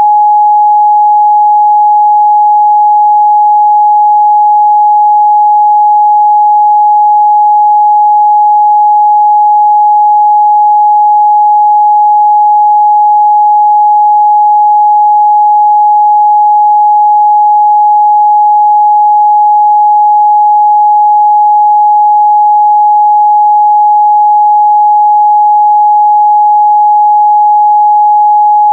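Continuous 838 Hz pure sine test tone, steady and loud, one pitch with no overtones.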